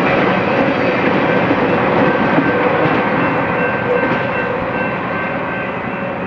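Rolling noise of a BNSF intermodal freight train's wheels on the rails as its last trailer-carrying flatcars pass and move away, fading steadily.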